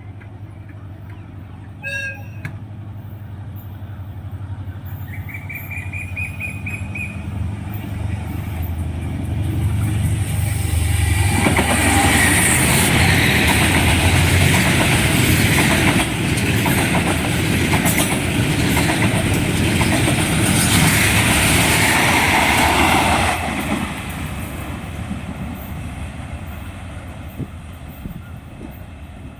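Freight train passing, hauled by a diesel locomotive. The engine's low drone builds steadily. Then the wagons rumble and clatter loudly over the rails for about twelve seconds before fading away.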